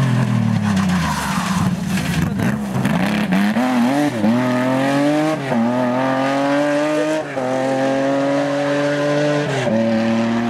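Renault Alpine A310 rally car's engine passing with its note falling, then accelerating hard away through the gears: the pitch climbs and drops back at each of four upshifts, settling to a steadier note near the end.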